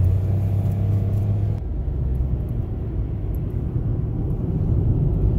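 Car driving, heard from inside the cabin: a steady low rumble of engine and tyre noise. A steady low hum in it cuts off abruptly about a second and a half in.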